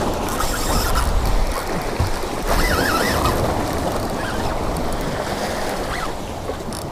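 Waves washing against the rocks of a jetty, with wind buffeting the microphone.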